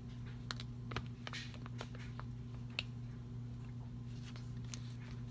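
Hands handling paper on a desk: scattered small clicks and soft rustles, the sharpest about three seconds in, over a steady low hum.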